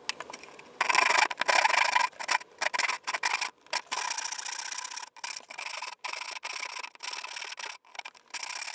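Hand saw cutting into the end of a wooden board in a run of quick back-and-forth strokes, the first ones, about a second in, the loudest.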